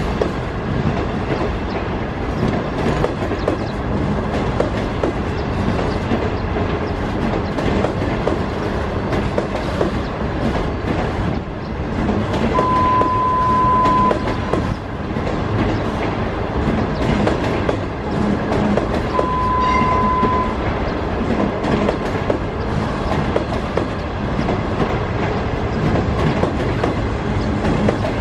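Passenger train coaches rolling slowly past on the track, wheels rumbling and clattering over the rails. Twice a brief steady high tone sounds over the rolling, each lasting about a second and a half.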